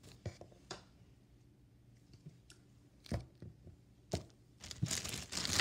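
A few light taps and clicks as lumps of soft modelling clay are handled and set down on a tabletop, then a rustling handling noise near the end.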